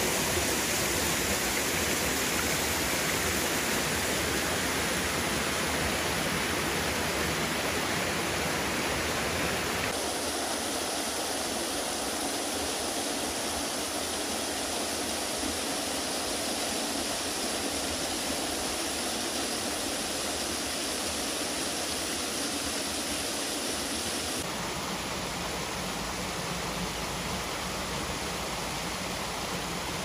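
Small woodland waterfalls and a rocky stream giving a steady rush of falling and splashing water. The sound changes abruptly twice, about a third of the way in and again near the end, as a different stretch of falling water takes over.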